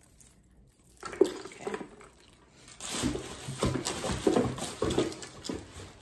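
Irregular rustling, scraping and knocks of a purse and its packaging being handled and moved aside, with a sharp click about a second in and busiest in the second half.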